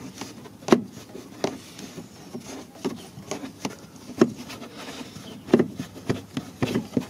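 A hand-held Phillips screwdriver working a screw out of a car door trim panel. The tool and the plastic trim make irregular clicks, scrapes and small knocks.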